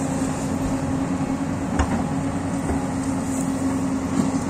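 Hyundai crawler excavator's diesel engine running steadily under load as it cuts into the hillside, with a steady hum. A sharp knock a little under two seconds in, with a fainter one shortly after.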